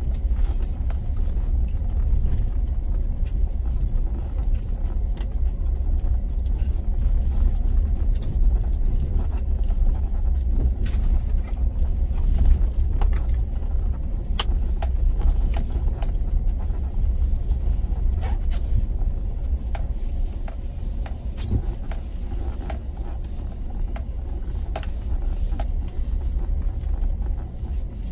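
Inside the cabin of a vehicle driving on a dirt road: a steady low road and engine rumble, with frequent irregular small clicks and rattles.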